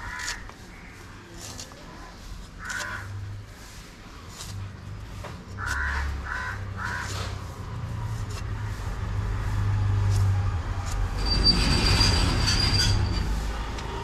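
Short bird calls several times over a low rumble, like a passing vehicle, that builds to its loudest about three-quarters of the way in, with a thin high squeal at the peak.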